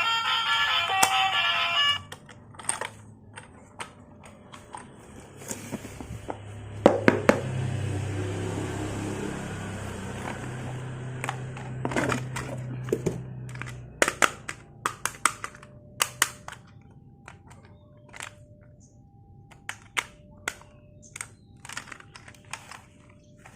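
Background music for about two seconds, then many sharp plastic clicks and knocks from an RC toy police car and its packaging being handled, with a low hum for several seconds in the middle and short repeated beeps in the later part.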